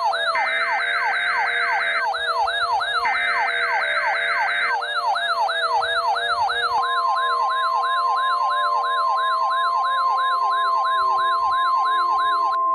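A mock Emergency Alert System broadcast: a fast electronic yelp siren sweeps about twice a second throughout, over a slower wavering siren tone. In the first few seconds two bursts of the alert's buzzy digital header data play. About seven seconds in, a steady single-pitch alert attention tone joins and holds.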